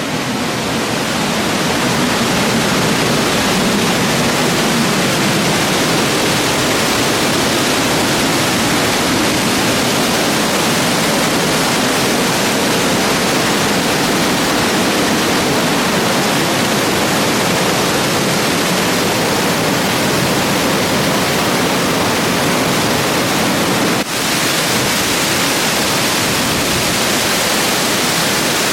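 Large waterfall pouring: a loud, steady rush of falling water heard from close by, briefly dipping about 24 seconds in.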